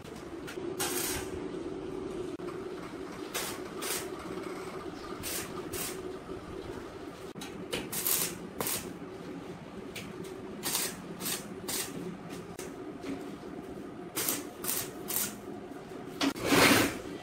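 Gas-shielded arc welder tack-welding a square steel tube frame: a run of short bursts of arc crackle over a steady hum, the loudest burst near the end.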